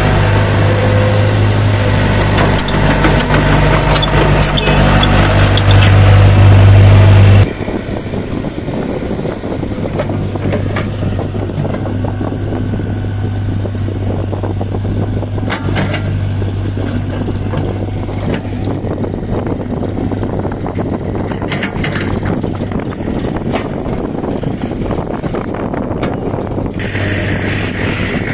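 Heavy diesel machinery engine running steadily, getting louder for a couple of seconds before an abrupt drop about seven seconds in, then running on at a lower level with a few sharp knocks.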